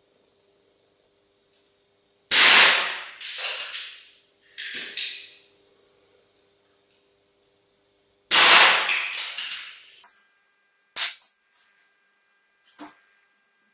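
Two shots from a Diana LP8 Magnum spring-piston .177 air pistol, about six seconds apart. Each is a sharp report that trails off over a second or so with a few smaller knocks after it. A handful of light clicks follow near the end.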